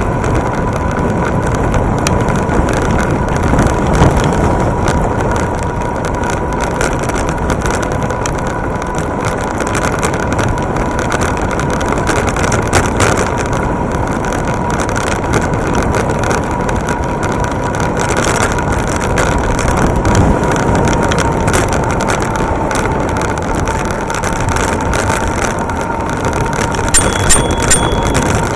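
Electric bike riding along a rough paved road: a steady rumble of tyre, road and wind noise with scattered knocks and rattles from bumps, and a thin steady whine throughout. Near the end there is a brief high tone.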